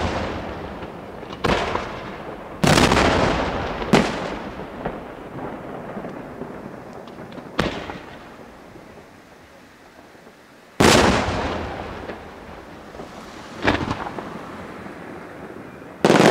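Aerial firework shells bursting overhead: about seven sharp bangs at uneven intervals, each followed by a rolling echo that fades over a second or two.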